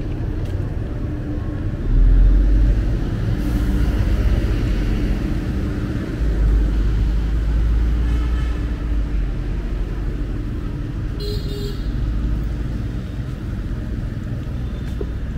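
City street traffic passing close by, a steady low rumble of engines and tyres that swells about two seconds in. Two short horn toots sound, one near the middle and a higher one a few seconds later.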